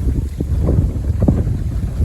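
Strong gusty wind buffeting the microphone, a heavy low rumble with irregular surges, ahead of an approaching typhoon.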